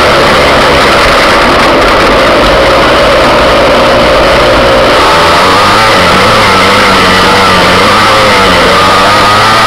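Engine of an off-road vehicle running while riding over a dirt track, its pitch wavering up and down with the throttle, so loud on the microphone that it distorts.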